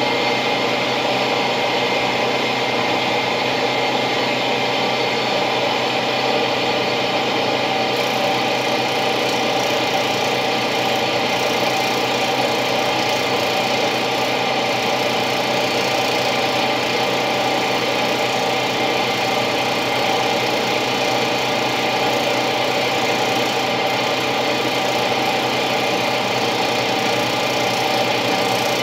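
Steady mechanical hum of a running motor, even in pitch and level throughout.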